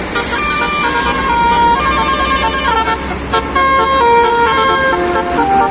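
A bus's Basuri 'telolet' multi-tone air horn playing a quick tune of held notes that step up and down, over the low running of the bus engine.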